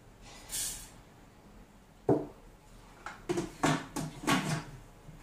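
Black plastic lid being fitted onto the steel mixing jug of a Silvercrest Monsieur Cuisine Connect kitchen machine: a sharp clack about two seconds in, then several dull clunks as it is seated and locked.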